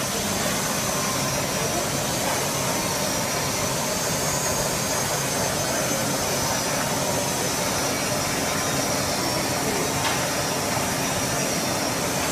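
240 V vacuum homogenizer mixer running its agitator, with the paddles and scraper frame spinning in the air on a test run: a steady mechanical running noise with a thin high whine that wavers slightly in pitch.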